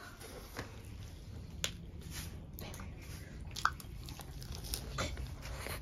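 Close-up eating sounds: biting into and chewing lettuce-leaf wraps of rice and fish curry, with a few sharp crisp clicks among the steady chewing.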